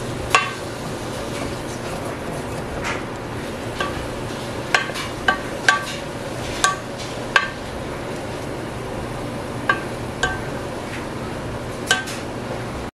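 Chopped onions and bell peppers sizzling in butter and oil in a stainless steel sauté pan as they cook down, stirred with a wooden spoon that knocks against the pan about a dozen times, each knock ringing briefly.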